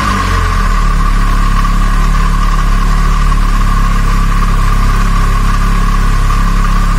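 Gasoline engine running at a steady speed, with a steady whine over its low hum.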